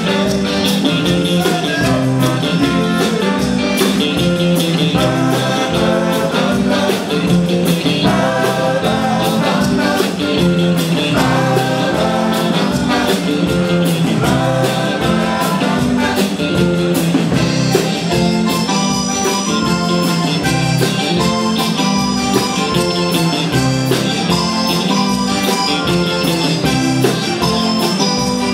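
Live band playing rock and roll: electric guitar, keyboard and a steady drum beat, with singing.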